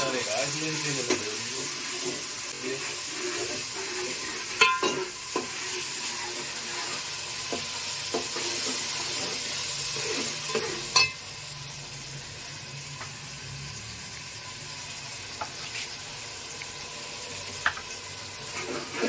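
Masala sizzling in an aluminium pot while a metal ladle stirs and scrapes it, knocking sharply against the pot a few times. About halfway through it settles to a quieter, steady sizzle.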